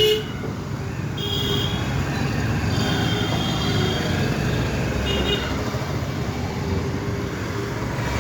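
Street traffic rumbling steadily, with a vehicle horn tooting briefly at the very start and a few short, high-pitched horn beeps a little over a second in, around three seconds in and around five seconds in.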